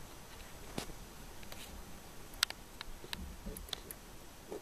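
Ballpoint pen working on paper: faint scratching with scattered small ticks and taps as the pen and hand move over the sheet, the loudest tick about halfway through.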